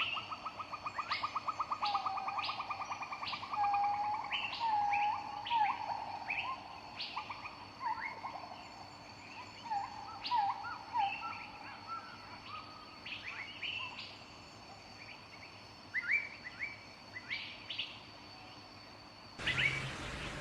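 Several songbirds calling and singing: short chirps, slurred whistles and a fast trill in the first few seconds. Near the end a steady hiss cuts in suddenly.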